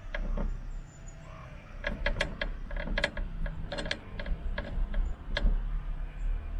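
A string of irregular, sharp clicks and clacks with a faint metallic ring, bunched together in the middle, over a steady low rumble.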